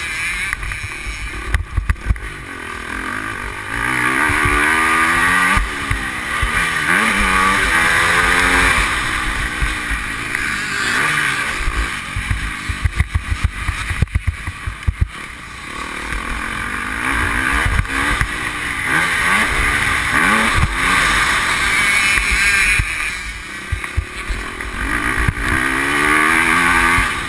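Motocross bike engine heard from onboard, revving hard and easing off again and again, its pitch climbing through the gears on each run. A cluster of sharp knocks comes about halfway through.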